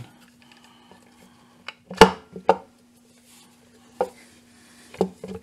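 BMW F800GS clutch cover knocking against the engine case as it is worked by hand onto the lifter arm and studs: a few sharp clacks, the loudest about two seconds in.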